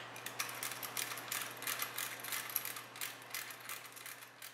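Ratchet wrench clicking in quick, irregular runs as it turns the service valve stems on a Carrier 5-ton refrigeration compressor, front-seating the suction and discharge service valves to isolate the compressor. The clicks thin out near the end.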